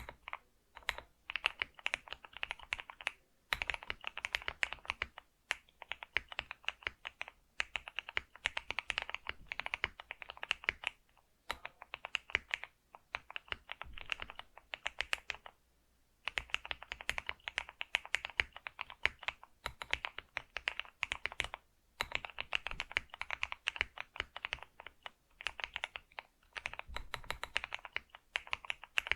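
Typing on a computer keyboard: runs of rapid keystroke clicks in bursts, broken by short pauses every few seconds.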